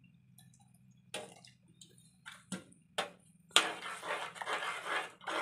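Metal ladle in a frying pan of thin curry made with rice starch water: a few light clinks, then a sharp metal clank about three and a half seconds in, followed by steady stirring with liquid sloshing and metal scraping on the pan.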